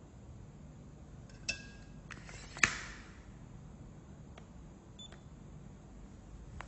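Acegmet DTX 10 digital tape measure: a click with a short electronic beep about a second and a half in, then a sharp clack, the loudest sound, as the steel blade retracts into the housing, and a brief high beep about five seconds in as the mode changes.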